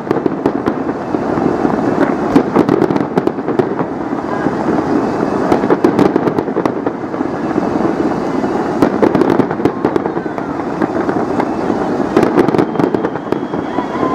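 Fireworks display in full barrage: many shells bursting in quick succession, sharp bangs over a continuous din of explosions.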